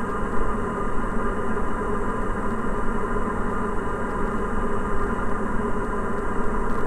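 Diamond DA40 NG's Austro AE300 turbo-diesel engine and propeller droning steadily in flight, heard inside the cockpit.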